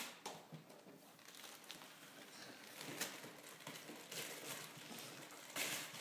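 Faint rustling and crinkling of Christmas wrapping paper as a present is unwrapped, with a brief louder rustle near the end.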